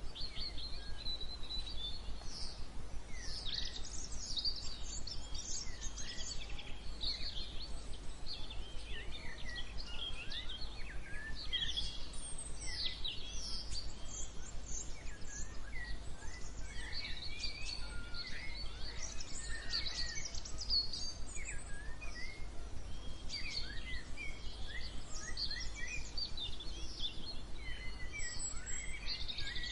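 A chorus of many wild birds chirping and singing at once, a steady stream of short, high calls and quick up-and-down whistles that overlap throughout. A steady low rumble sits underneath.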